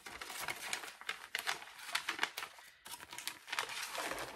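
Crinkling and rustling as a cross-stitch project is handled and moved about in front of the microphone: a steady run of small crackles.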